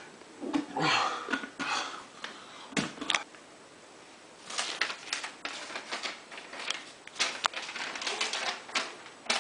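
Rustling and scratching, then two sharp clicks about three seconds in, then a dense run of quick, irregular taps and clicks lasting several seconds.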